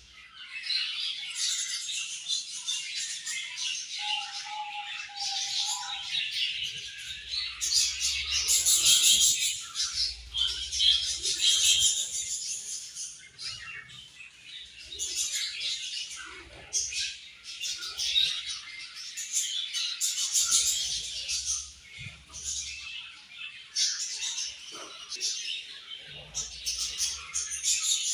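Budgerigars chirping together in a dense, overlapping chatter.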